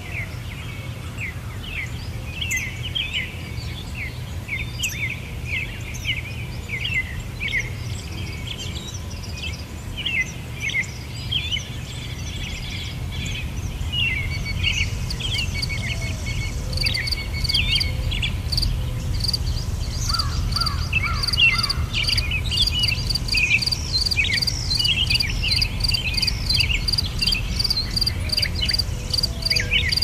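Small birds chirping repeatedly in short notes over a low steady rumble; a little past halfway an insect starts a fast, even, high-pitched pulsing trill.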